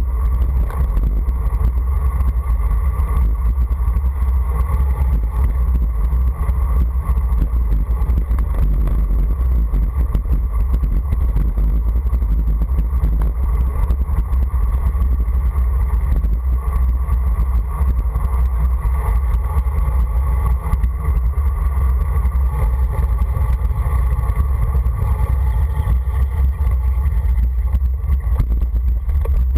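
Wind buffeting the microphone of a camera moving fast downhill, a steady heavy rumble with rushing road and tyre noise under it.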